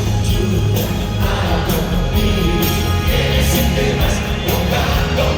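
Pop ballad band music with a steady beat and bass, in an instrumental stretch between sung lines, perhaps with faint backing vocals.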